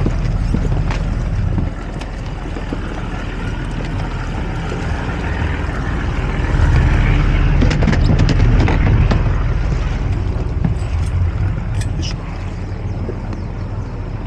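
Fishing ferry boat's engine running steadily under way, with a steady rushing noise over it. It grows louder for a few seconds in the middle.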